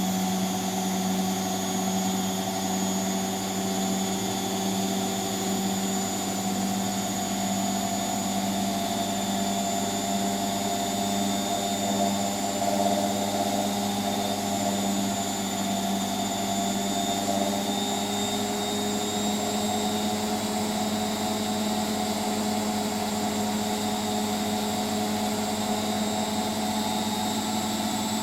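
Hotpoint WMXTF742K washing machine spinning at speed: a steady motor hum and whine, creeping slowly up in pitch.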